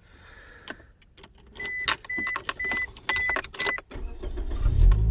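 Keys jangling at the ignition of a 2005 Scion xB while its warning chime beeps five times, about two a second; near the end the 1.5-litre four-cylinder engine is cranked and starts, settling into a steady idle.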